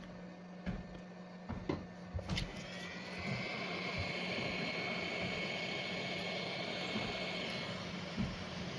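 A few light clicks of tools, then a hot-air blower starts about two seconds in and runs steadily with a high whine over its rushing air, easing off near the end. It is heating plastic tabs on the earbud's small circuit board so they melt and release the board.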